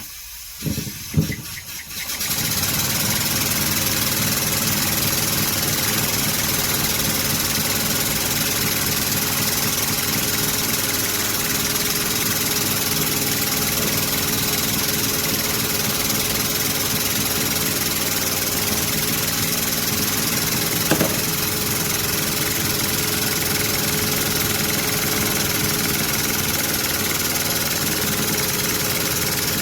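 Restored miniature steam engine starting up after a few knocks, then running steadily with a constant hiss and hum. A single brief knock near the middle.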